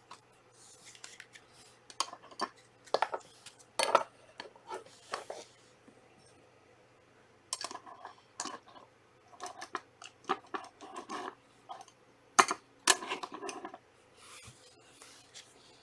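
Trading cards being handled: an irregular run of sharp clicks, slides and papery rustles as cards are flipped through and tapped, going quiet for about a second and a half midway.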